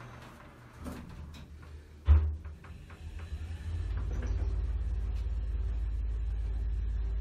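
Elevator doors sliding shut and closing with a sharp thud about two seconds in. About a second and a half later the car starts its descent, and a steady low rumble of the elevator running sets in.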